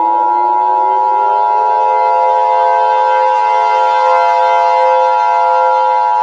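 Emergency alert siren: a civil-defense-style siren winds up in pitch over the first second or two, then holds steady over a steady high alert tone.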